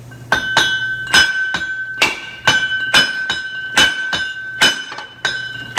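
Hammer blows on a steel wheel hub held in a vise, about a dozen sharp metallic strikes roughly two a second, the hub and brake rotor ringing with a steady high tone between them. The hub is being driven loose from the rotor.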